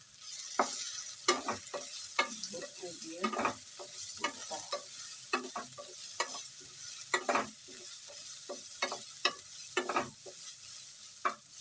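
Ghee sizzling in a kadhai on a low flame as ginger fries with crackled mustard seeds and coarsely crushed chilli, with frequent sharp crackles and pops, more than one a second.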